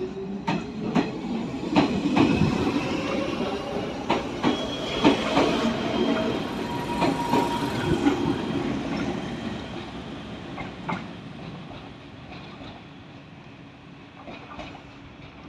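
Izuhakone Railway 3000-series electric train pulling out and accelerating past. Its motor whine rises in pitch and the wheels click over the rail joints. The sound fades away over the last few seconds as the train leaves.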